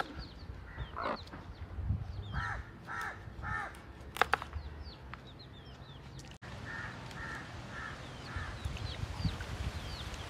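Domestic hens clucking in two short runs of three or four calls, with small birds chirping throughout. A single sharp knock about four seconds in.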